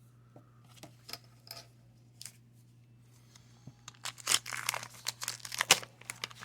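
A few light clicks of handling, then about four seconds in a dense crinkling and tearing as the paper wrapper of a 1990 Fleer baseball card pack is ripped open.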